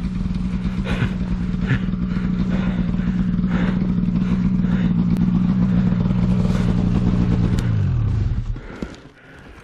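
Snowmobile engine held at steady high revs while pushing through deep snow, then winding down and dropping away about eight seconds in.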